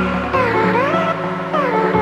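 Background electronic music: sliding synth melody lines over held chords and a steady bass.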